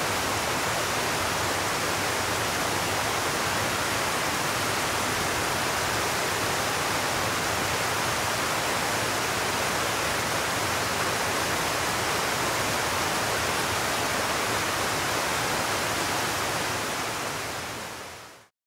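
Steady rush of a mountain stream tumbling over small cascades, fading out near the end.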